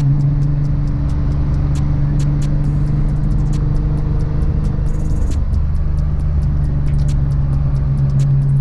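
Nissan GT-R R35's twin-turbo 4.1-litre VR38 stroker V6 running at a steady engine speed through its stainless exhaust, an even low drone, with scattered light ticks over it.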